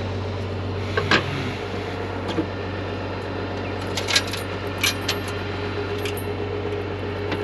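A metal chain clinking against the steel of a feed wagon's hitch in several sharp clinks as the hitch is chained up, over the steady drone of an idling International Harvester 856 tractor.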